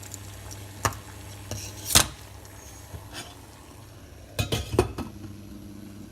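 Sharp metallic clinks and clanks of a stripped Swiss Army knife against a pot as it goes into the boiling drain cleaner: a few separate strikes, the loudest about two seconds in and a quick cluster near the end.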